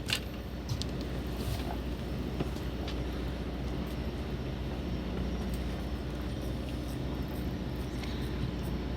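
A fishing boat's onboard machinery running at rest, a steady low hum with a few faint clicks in the first seconds.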